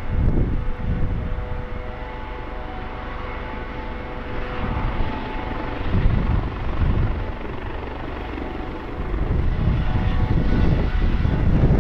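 Airbus Helicopters AS365 Dauphin running on the ground: a steady turbine whine over a heavy rotor rumble. It grows louder about nine seconds in as the helicopter starts to move off.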